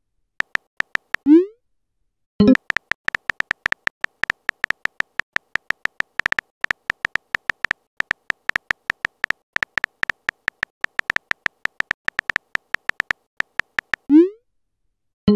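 Texting-app sound effects: a short rising swoosh, then a message pop about two and a half seconds in, followed by a long run of rapid keyboard-typing clicks, several a second, while a message is typed out. Another rising swoosh and pop come near the end.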